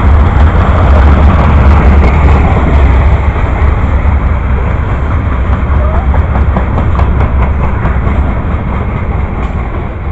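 Freight train of covered hopper cars rolling past close by: steel wheels running on the rails with a deep rumble, getting steadily quieter over the second half as the train moves on.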